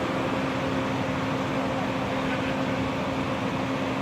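Steady mechanical hum: a constant low drone under an even whooshing noise, with no change in level.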